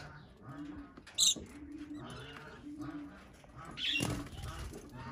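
Budgerigars chattering and chirping, with a sharp chirp about a second in. About four seconds in comes a burst of wing-flapping and a call as one budgie lunges aggressively at another.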